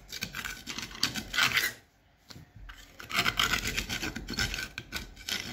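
Hand drywall saw rasping back and forth through the fiberglass laminate of a sailboat's hull bottom in quick strokes, with a short pause about two seconds in.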